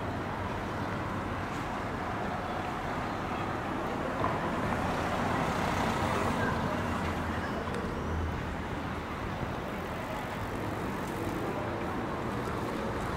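City street ambience: a steady hum of light road traffic, swelling a little in the middle.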